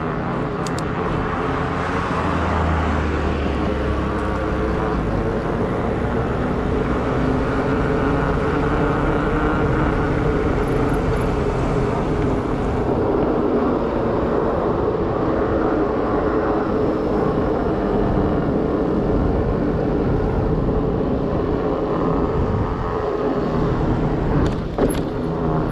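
Steady rolling noise of a Surly Moonlander fat bike's wide tyres on pavement, mixed with wind on the handlebar microphone and passing car traffic. There is a brief knock near the end.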